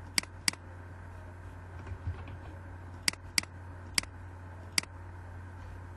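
Computer mouse clicking: six sharp clicks, two quick pairs and then two single clicks, over a steady low hum.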